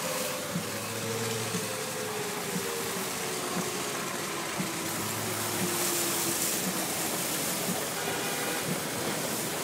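Steady road and wind noise from a car driving, with a distant siren slowly falling in pitch through the first half and a soft tick about once a second.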